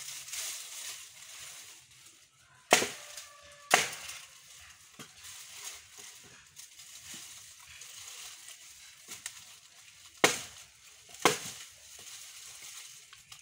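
Sharp chops of a short-handled digging tool striking old timber fence posts at ground level, four blows in two pairs about a second apart, with dry brush and debris crunching in between.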